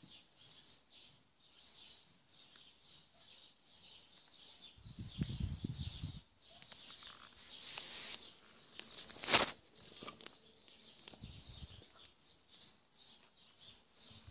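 Faint, continuous high chirping of birds in the background. A low rumbling scuffle comes about five seconds in, and a single sharp knock a little past halfway is the loudest moment.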